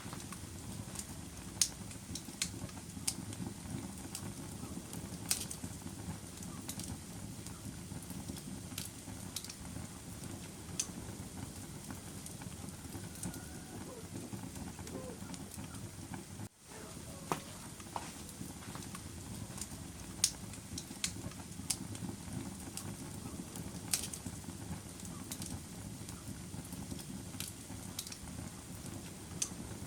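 Wood fire burning in a fireplace: irregular sharp crackles and pops over a steady low rush of flame. The sound drops out suddenly for a moment about 16 seconds in, then carries on.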